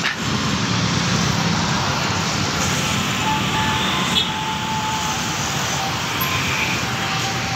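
Steady roar of dense multi-lane city road traffic, cars streaming past continuously.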